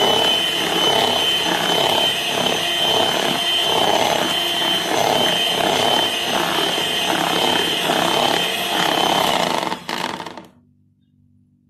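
Electric hand mixer running at speed, its beaters churning egg yolks into whipped egg whites: a steady motor whine over the sloshing of the batter. It switches off about ten seconds in.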